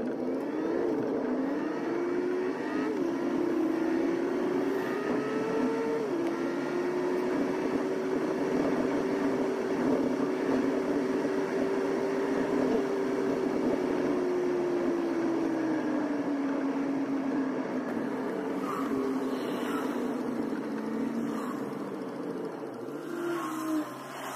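A motor vehicle's engine pulling away: its note rises and drops back twice, as at gear changes, in the first several seconds, then holds steady and slowly falls away, over a constant rushing background.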